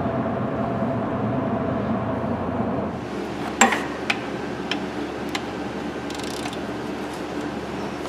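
Steady road and engine noise inside a moving vehicle's cabin, which cuts off about three seconds in. After that comes a quieter shop background with a few sharp clicks and knocks of a hand tool in an engine bay.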